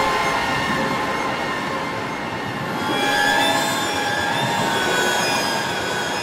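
Synthesized horror sound effect made with the Nexus synthesizer: a dense, continuous grinding texture scattered with many short, high squealing tones, easing slightly and then swelling again about three seconds in.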